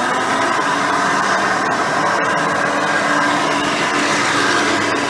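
Custom Hoover Elite 350 upright vacuum cleaner with a Cleveland Wood Products brush roll running steadily, a loud even hum with several held tones, and a couple of faint ticks about two seconds in.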